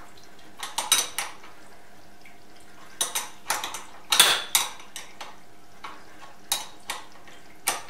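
Irregular sharp metal-on-metal clinks, each with a brief high ring, about ten in all and bunched in small clusters, over a steady machine-shop hum.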